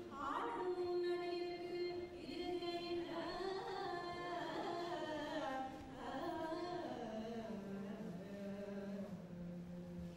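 A single voice singing a devotional song in a slow Carnatic style, with long held notes that slide between pitches, ending on a lower note held for a few seconds.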